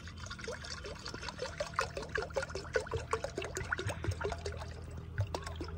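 Liquid glugging out of an upturned plastic bottle into an aluminium pot, a rapid string of bubbling glugs as air gurgles back up into the bottle.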